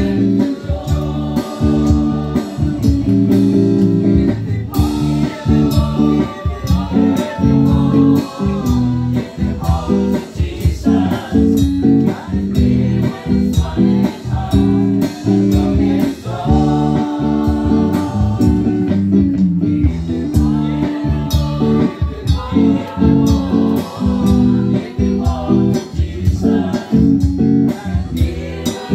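A small mixed group of voices singing a gospel song together over instrumental backing.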